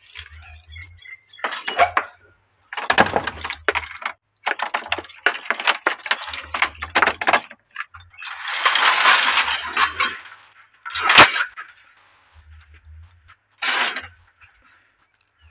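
Rustling and crackling of cut grass and brush being handled, in irregular bursts, with a longer swish about eight seconds in and a sharp crack about eleven seconds in.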